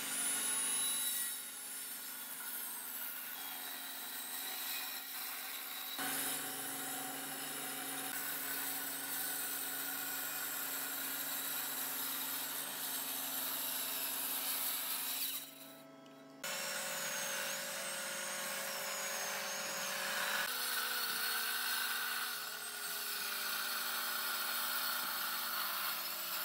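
Large handheld circular saw running under load as it rips lengthwise through a thick hardwood slab, a steady motor whine over the hiss of the blade cutting, with a brief lull about two-thirds of the way in.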